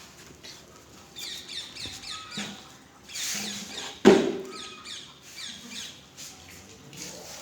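A brood of young chicks peeping, many short high falling chirps overlapping. A single sharp knock about four seconds in stands out as the loudest sound.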